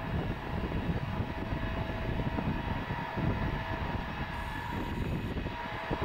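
Tupolev Tu-154M's three Soloviev D-30KU-154 turbofans running as the airliner taxis on the runway: a steady rumble with a few constant whining tones over it.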